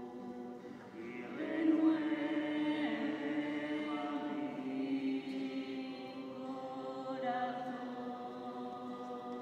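Voices singing a slow church hymn in long held notes.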